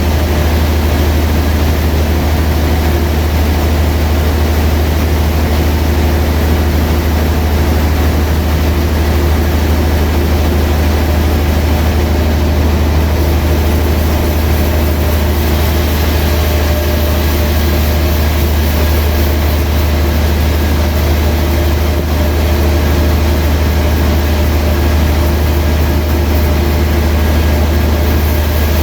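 Sawmill machinery running steadily, a deep, even drone that holds the same pitch throughout with no cuts or knocks standing out.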